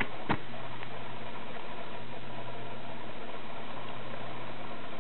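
Steady hiss with a faint low hum, and a single click about a third of a second in.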